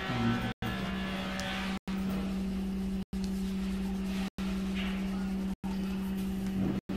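A steady machine hum at a constant pitch, with a noisy hiss above it. It is broken by brief silent gaps about every second and a quarter.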